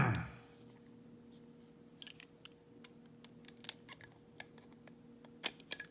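Screwdriver working at a Phillips-head screw deep inside a Yale 417N padlock body: sparse, irregular small clicks and taps, starting about two seconds in.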